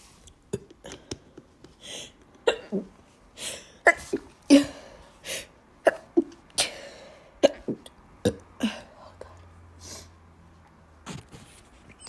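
A woman hiccuping over and over, a short sharp catch in the throat about once a second, with a few longer breathy bursts between the hiccups. The hiccups come thick through the first eight or nine seconds, then only a couple more near the end.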